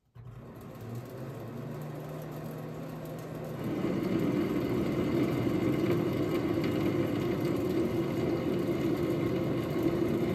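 Metal lathe starting up and running through a thread-cutting pass on a grade 8 bolt, a tangential high-speed-steel tool taking a cut 10 thousandths deeper. The motor hum rises a little in pitch as it spins up, and about three and a half seconds in the sound grows louder and holds steady.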